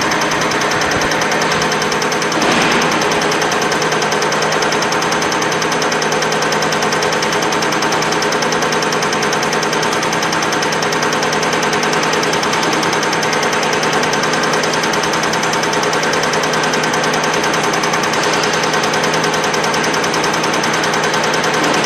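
BC CR708 common rail injector and pump test bench running steadily: a loud mechanical drone with a rapid, even ticking, and a brief louder swell about two and a half seconds in.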